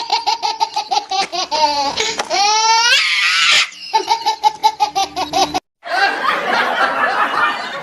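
A person laughing hard in a rapid string of ha-ha bursts, about six a second, rising into a high squeal about two and a half seconds in. It cuts off suddenly past the middle, and a noisier, less regular stretch follows.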